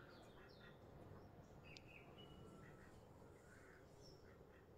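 Faint outdoor garden ambience with a few scattered, distant bird chirps.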